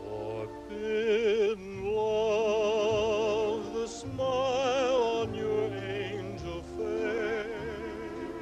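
Operatic singing with orchestral accompaniment: a single voice holding several long notes with a wide, wavering vibrato.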